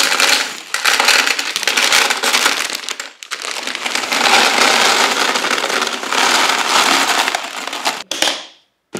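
Dry fusilli pasta poured from its plastic bag into a tall clear plastic canister: a dense rattling clatter of hard pieces hitting the plastic. It comes in two long pours with a short break about three seconds in, and stops suddenly near the end.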